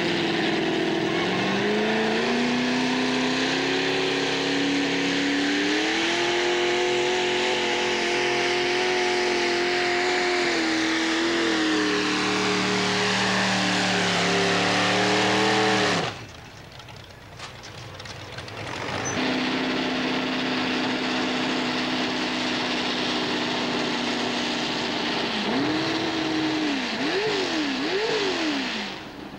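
Engine of a mini pulling tractor running hard under load as it drags a pulling sled. Its pitch climbs in the first seconds, sags over the last few seconds of the pull, and then stops abruptly. After a brief quieter gap, another mini puller's engine idles steadily and is revved in a few quick blips near the end.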